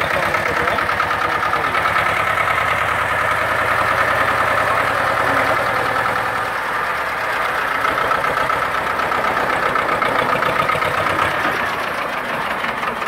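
Old Escort 335 tractor's diesel engine running steadily with a fast, even pulse, its note shifting slightly about halfway through.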